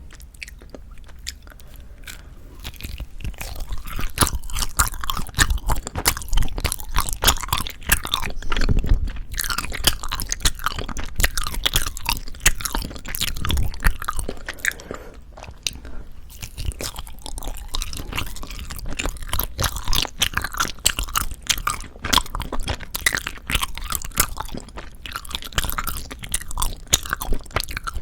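Close-miked mouth sounds of chewing soft, sticky rice cake (tteok): wet smacks and clicks, quieter in the first few seconds and denser after that.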